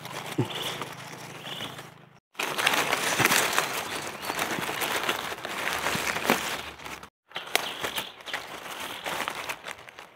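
Dry fallen leaves and twigs crackling and rustling as hands dig through the leaf litter to pick mushrooms. The sound cuts off abruptly twice for a moment and resumes, loudest in the middle stretch.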